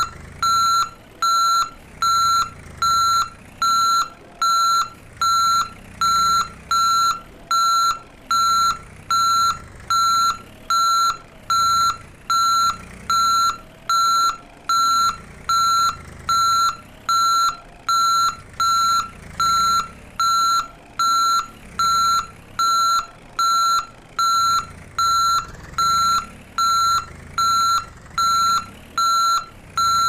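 Electronic reversing-alarm style beeping: a single high beep repeated evenly, about four beeps every three seconds, that keeps going without a break.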